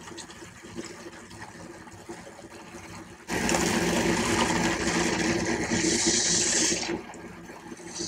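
Electric makeup brush cleaner spinning a brush in a bowl of soapy water: the small motor's steady whir with swishing, churning water starts abruptly about three seconds in and stops about a second before the end.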